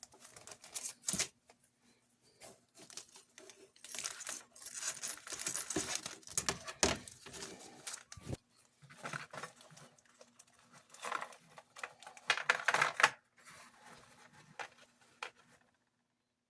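Rustling and crinkling of packaging as small replacement motor brushes are taken out and handled, with scattered light clicks and taps.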